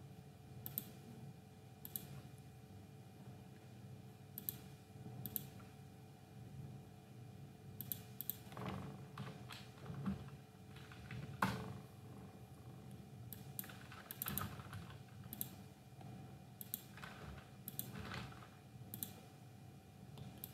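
Computer keyboard typing in short runs, with scattered single clicks between them, over a faint steady hum.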